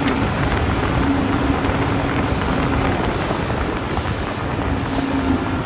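Fishing boat running at speed: a steady engine hum under heavy wind rushing over the microphone and the rush of water.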